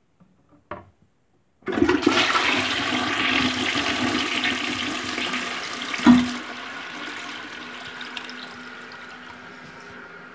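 Toilet flushing through its newly fitted flush valve. A sudden rush of water starts about two seconds in, with a brief thump about six seconds in, then eases to a quieter, steady run of water as the toilet refills.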